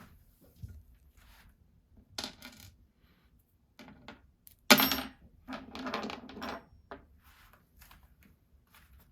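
Small metal parts clinking and clattering on a hard surface during bicycle rim brake work. Scattered clicks come first, then one sharp metallic clink about halfway through that rings briefly, followed by about a second of rattling.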